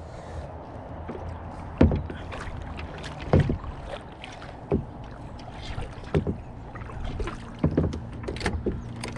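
Knocks and bumps in a plastic Perception fishing kayak, about one every second and a half, over a steady low rumble.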